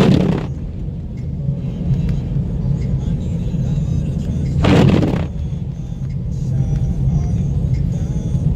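Car cabin road noise while driving on snowy roads: a steady low rumble of engine and tyres, with two short swishing sweeps of noise, one at the start and one about five seconds later.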